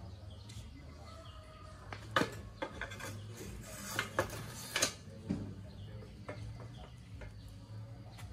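Metal clinks and knocks as a bicycle front fork and frame are handled and fitted together on a concrete floor, several sharp strikes about two to five seconds in, with a short spray hiss near the middle.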